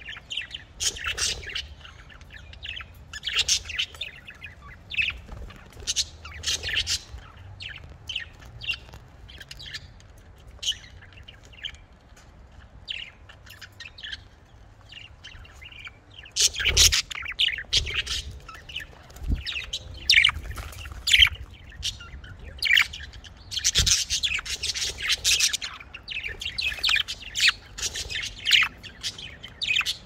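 Several budgerigars chirping and warbling in quick, overlapping short calls, which grow busier and louder about halfway through. A few thumps come among the calls.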